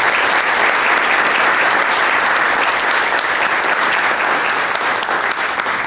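Audience applauding steadily: a sustained round of clapping from many hands.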